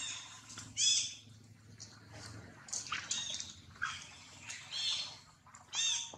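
Newborn macaque giving a few short, high-pitched squeaking calls, each rising and falling, about four in a row a second or two apart.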